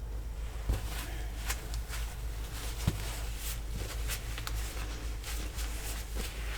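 Scattered light taps and rustles of handling over a steady low hum, with one sharper tap about three seconds in.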